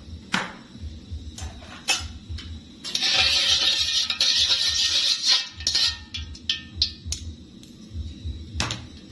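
Metal tongs clinking and scraping in a stainless steel wok on a gas burner: scattered sharp knocks, a loud hissing stretch of about three seconds from about three seconds in, then a string of lighter ticks.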